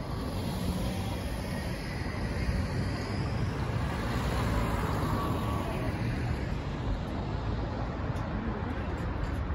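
Road traffic on a city street: cars driving past close by, engines and tyres over a steady traffic rumble, a little louder as a car passes about four to five seconds in.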